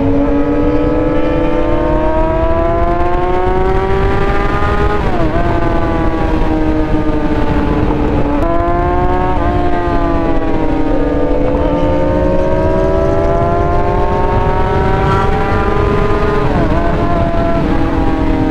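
Yamaha R6's inline-four engine heard from the saddle under heavy wind rush, its pitch slowly climbing and easing as the bike rides on, broken four times by a brief sharp dip in pitch at a gear change.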